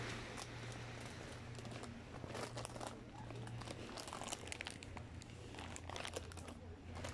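Crunching and crinkling footsteps on a path strewn with dry leaves and twigs, a run of irregular sharp clicks and crackles. A steady low hum sits underneath.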